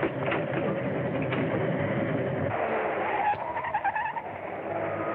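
Steam train running, the engine noise from an early sound-film soundtrack. About two and a half seconds in, a high, wavering tone comes in and lasts about a second and a half.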